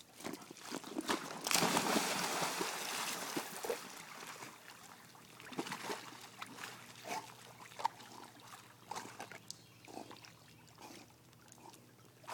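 A dog splashing into an inflatable above-ground pool, the loudest splash about a second and a half in, then paddling through the water with scattered small splashes and sloshes.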